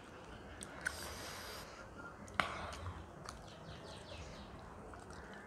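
Faint eating sounds: chewing, and fingers working food on a banana leaf, with scattered small clicks and one sharper click about two and a half seconds in.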